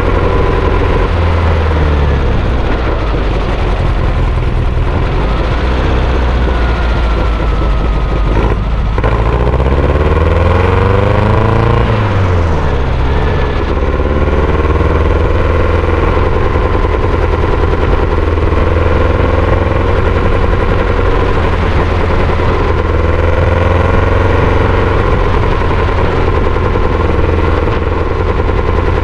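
Sand buggy's engine running hard while driving, its pitch rising and falling with the throttle. The pitch climbs steadily from about nine seconds in, then drops sharply about three seconds later.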